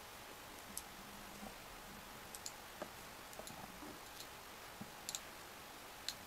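Metal knitting needles clicking lightly as stitches are worked: about a dozen faint, irregularly spaced clicks.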